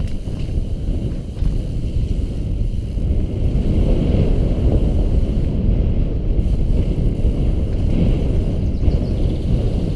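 Wind buffeting an action camera's microphone over the rumble and rattle of a mountain bike's tyres running fast down a dirt trail, growing louder about a second and a half in.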